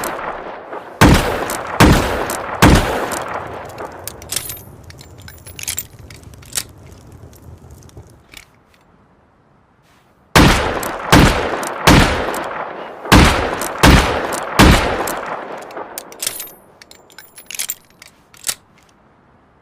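High-calibre revolver firing: three shots a little under a second apart, each with a long echoing tail, then after a pause a string of six shots. Faint metallic clicks follow each string.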